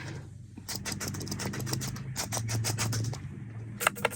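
Typing on the Apple keyboard that came with the 24-inch iMac: a quick run of light key taps, then a few sharper clicks near the end, over a faint low hum.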